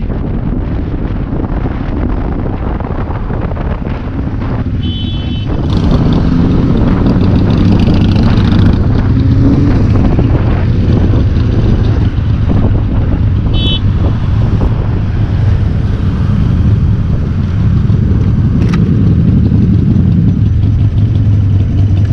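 Motorcycle riding on the road with wind rushing over a helmet-mounted microphone. From about six seconds in, the engine drone grows louder and steadier as the bikes slow and pull up together. Two brief high beeps come a little before that and again midway.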